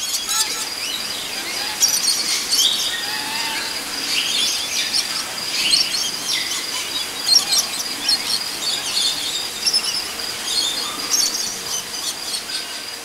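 Natural soundscape of many birds chirping and calling over a steady, high-pitched insect drone.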